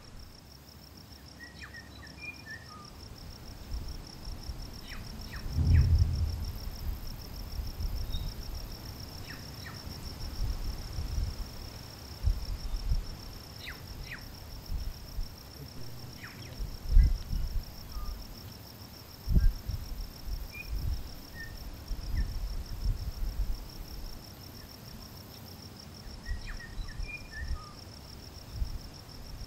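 Steady high-pitched insect chirring with a few faint scattered bird chirps, broken by irregular low rumbles of wind buffeting the microphone, strongest about six and seventeen seconds in.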